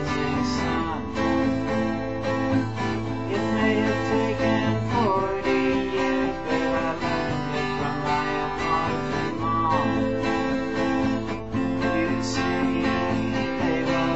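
Acoustic guitar strummed in a steady chord pattern, with a man singing along.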